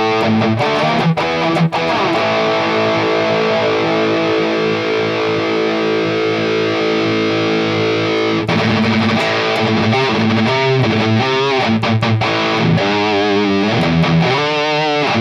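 Distorted electric guitar played through a Mooer Prime S1 modeling unit on a high-gain amp model: a few struck chords, one chord held for several seconds, then lead notes with wide vibrato near the end. The player hears the tone as a little artificial and suspects clipping in the overdrive block.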